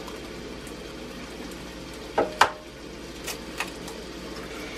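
An egg knocked twice against the rim of a bowl to crack it, a couple of seconds in, followed by two lighter clicks as the shell is opened. A steady low hum runs underneath.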